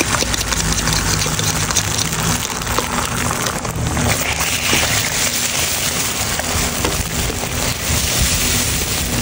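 Beaten eggs sizzling in hot oil in a nonstick wok, a steady crackling hiss, with light scrapes and taps of a plastic spatula as the eggs are scrambled.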